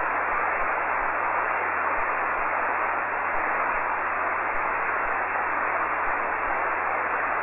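Shortwave amateur-radio receiver hiss: a steady rush of static on the open 40 m band, heard while nobody is transmitting, with a faint low hum beneath.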